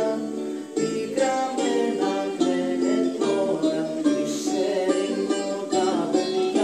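A song performed live: singing with a plucked string instrument accompanying, a run of changing sustained notes.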